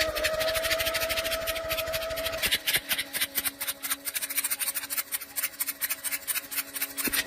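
A machine running with a rapid, even clatter and a steady whine that drops to a lower pitch about two and a half seconds in.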